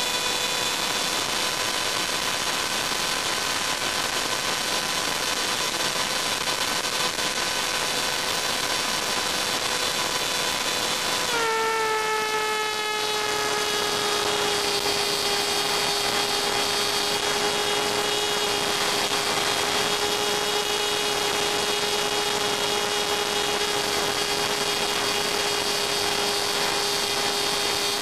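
Steady electronic whine with a hiss beneath it, as carried on an FPV video downlink's audio. About eleven seconds in, it steps down slightly in pitch and then holds steady again.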